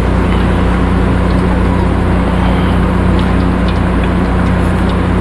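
Steady, loud drone of commercial kitchen equipment running: a low hum under an even hiss, with a few faint clinks about the middle.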